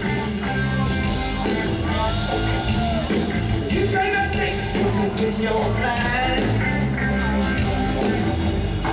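Live band music: a steady bass and drum groove played loudly, with sung vocal lines over it.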